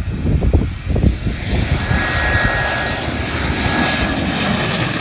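Airliner engines with a steady high whine growing in from about a second and a half in, over heavy wind buffeting on the microphone, which is strongest at the start.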